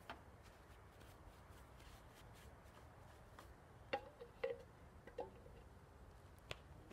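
Near silence broken by a handful of faint, sharp clicks and knocks, a few of them with a brief ring, the loudest about four seconds in.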